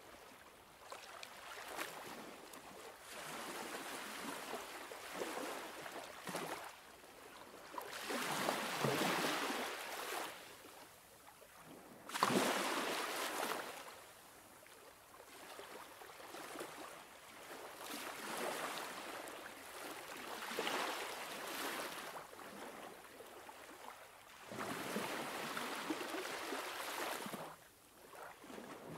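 Sea waves washing and splashing against shoreline rocks, coming in surges of a few seconds each that swell and fade; one starts suddenly about twelve seconds in.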